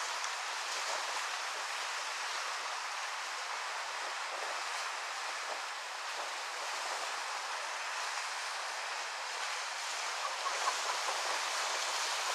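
Steady hiss of waves breaking and washing on a shore.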